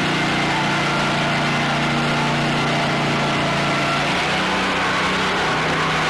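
Portable sawmill running steadily with a constant machine hum; about four seconds in the low note of the hum changes.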